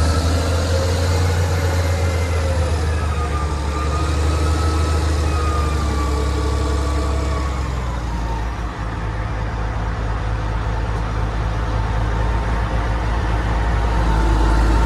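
Excavator's diesel engine running steadily under load, with a hydraulic whine that slowly rises and falls in pitch as the machine works.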